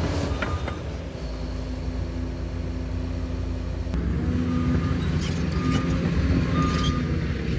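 Liebherr PR 746 crawler dozer running under work: a steady diesel drone whose pitch shifts about four seconds in. Short beeps sound about once a second in the second half.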